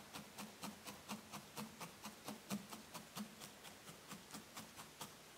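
A felting needle stabbing steadily into a tuft of wool on a burlap-covered pad, giving faint, even ticks with a soft thud, about four a second.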